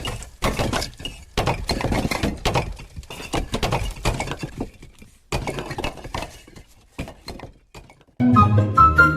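A long run of irregular crashing and clattering impacts, the sound of material breaking up and falling. About eight seconds in, a short musical passage takes over.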